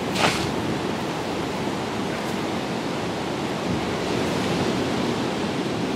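Steady wash of ocean surf breaking on the shore, with one short, sharp sound about a quarter of a second in.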